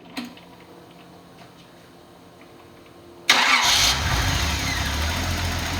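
A Nissan 280ZX turbo's fuel-injected inline-six on a test stand being started: a click near the start, then a sudden burst of cranking a little past three seconds as it fires and catches, settling into a steady idle.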